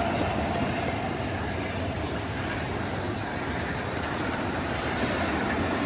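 Passenger coaches of a steam-hauled train rolling slowly past close by: a steady rumble of wheels on the rails.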